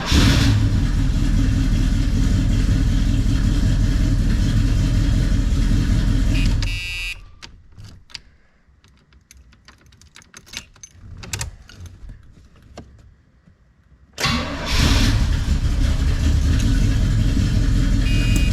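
A 1981 Oldsmobile Cutlass engine starting up and running, after its relay wiring has been redone. It stops about seven seconds in, then after a quieter stretch with scattered clicks it starts and runs again about fourteen seconds in.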